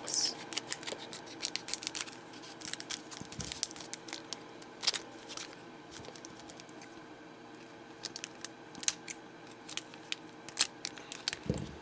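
Scissors snipping open a trading-card booster pack, with the wrapper crackling: a quick run of sharp clicks, a quieter spell a little past the middle, then more clicks near the end.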